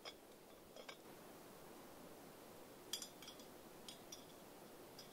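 A camp cooking pot's metal lid and hanging chain clinking as they are handled: a few light metal clinks, one at the start, one just before a second in, and a cluster of them around three to four seconds in.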